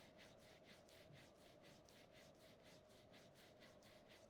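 Faint, rapid rubbing of fingers on skin: index fingers rubbed up and down the sides of the nose at about five strokes a second, over a faint steady hum.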